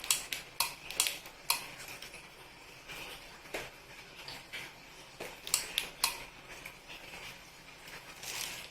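Irregular sharp clicks and taps of small hard objects being handled, a few close together at the start and another cluster about two-thirds of the way through.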